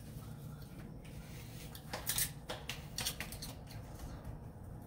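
A few light clicks, taps and crinkles from working a tortilla press lined with plastic sheets while shaping tortillas, over a low steady hum.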